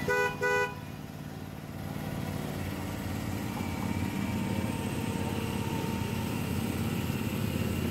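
Miniature ride-on train's whistle sounds two short blasts, the railroad signal to proceed. Then the train runs with a steady low mechanical rumble that grows slightly louder a couple of seconds in.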